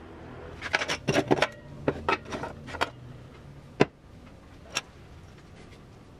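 Handling clatter of salvaged TV speakers and their plastic frames: a quick run of knocks and scrapes lasting about two seconds, then two single sharp clicks about a second apart.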